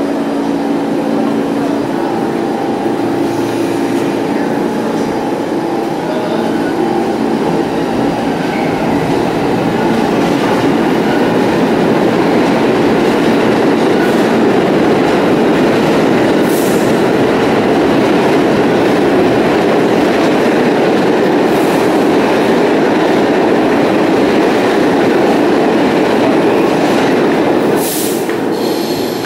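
NYC subway train moving on the adjacent track of the platform: a dense rolling rumble of wheels on rail that builds over about ten seconds, holds loud, then drops off sharply near the end. A few short, high-pitched wheel squeals cut through it.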